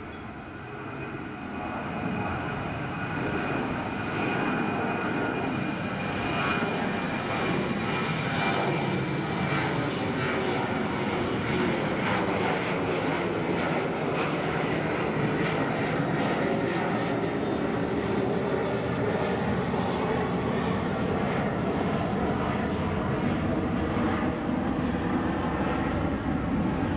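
Jet engines of a Boeing 737-800 airliner (CFM56-7B turbofans) passing, growing louder over the first few seconds and then holding a steady, loud roar, with tones that sweep down and back up through the middle of the pass.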